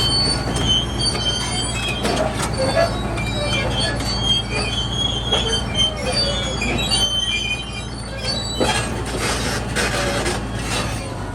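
Komatsu D475A crawler bulldozer on the move: a steady low diesel engine note under many short, high-pitched squeals from the steel tracks, with a few metallic clanks.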